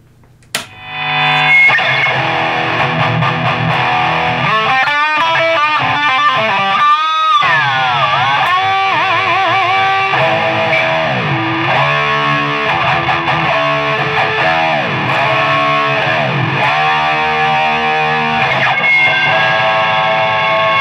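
Distorted electric guitar played through a Cry Baby wah pedal, the wah filter sweeping up and down over held notes and chords.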